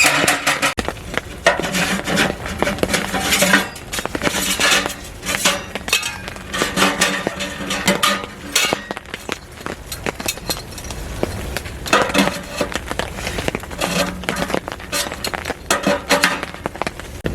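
Camp gear being handled: metal pieces clinking, rattling and knocking together in many quick, irregular strikes.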